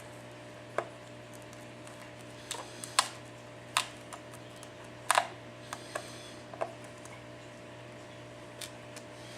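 Irregular sharp clicks and small snaps as a flat pry tool works under a cracked iPad 4 glass digitizer, breaking the adhesive loose and cracking off bits of the broken glass.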